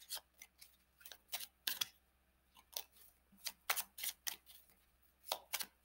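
Tarot cards being shuffled by hand: a quick, irregular run of short clicks and snaps as the cards slide and flick against each other.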